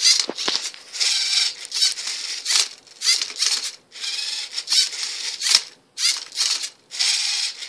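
Lego Mindstorms NXT servo motors of a MindCuber robot whirring in a string of short bursts with brief pauses between, each burst a move as the robot tilts and turns a Rubik's cube, with clicking of the plastic cube and Lego parts.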